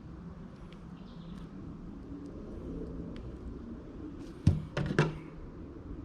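Bicycle parts and tools being handled during a bottom bracket install: a few sharp knocks and clicks bunched together about four and a half to five seconds in, over a low steady hum.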